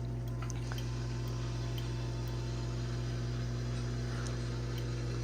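Steady low electrical hum with a buzzy edge, switched on with a click just before and holding at an even level.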